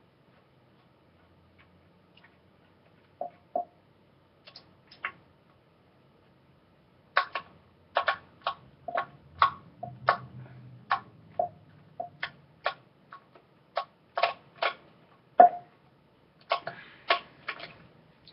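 Irregular sharp clicks and clinks of small metal screwdriver bits being handled and tried against a screw. There are a few at first, then quick runs of them from about seven seconds in.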